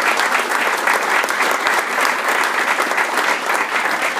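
Audience applauding, dense steady clapping from a room full of people.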